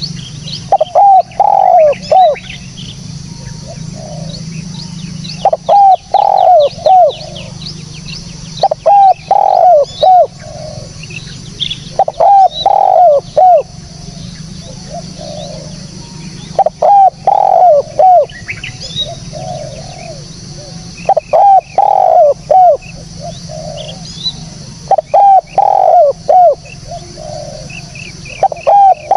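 Spotted dove (tekukur) cooing: a phrase of several hooked coos, repeated about every four seconds. Small birds chirp faintly in the background over a low steady hum.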